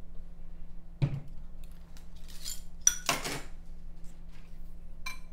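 A metal spoon knocking, scraping and clinking against a small glass bowl while stirring a dry baking mix: a thump about a second in, a short scraping rattle around three seconds, and a ringing clink near the end.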